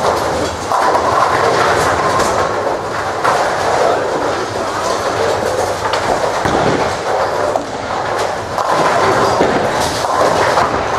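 Tenpin bowling balls rolling down the lanes, a steady rumble broken by clattering knocks of pins being struck.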